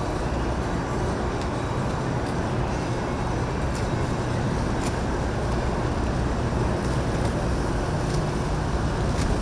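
Steady low mechanical rumble, as of engines running, under an even haze of noise, with a few faint ticks.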